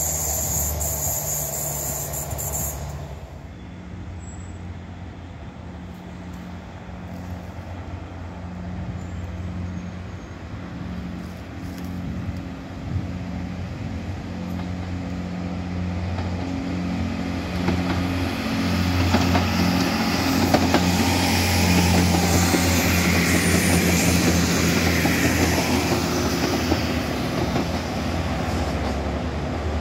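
Diesel multiple unit trains: a steady low engine hum that builds from about halfway through into a loud passing rumble of a Great Western Railway Turbo unit on the rails, with a high squeal near the loudest part. The sound changes abruptly about three seconds in.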